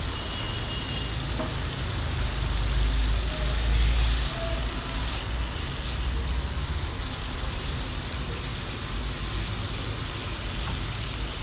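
A pan of eggplant curry, with water just added, sizzling and simmering steadily while it is stirred with a spatula.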